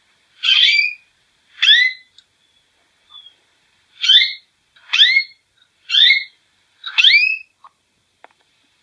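A bird calling six times: short calls about a second apart, each with a pitch that curves upward, with a longer pause after the second call.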